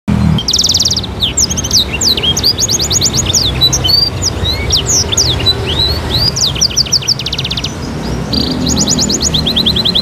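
A caged songbird singing continuously in full song (what Indonesian bird-keepers call gacor): a varied run of rapid trills, buzzy rattles and quick rising and falling whistles, over a low background rumble.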